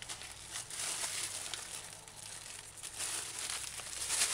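Crinkling of a plastic bag of sea salt as it is handled, louder near the end.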